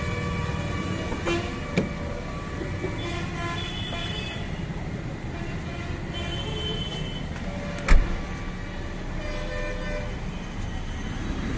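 Road traffic with a steady low rumble of engines and car horns tooting on and off, and one heavy thump about eight seconds in.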